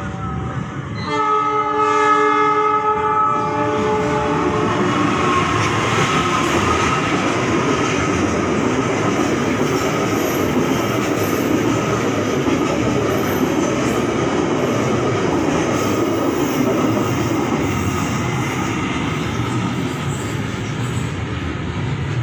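A diesel locomotive's horn sounds a steady chord for about three seconds. Then a long train of hopper wagons rolls past close by with a continuous loud rumble of wheels on rails.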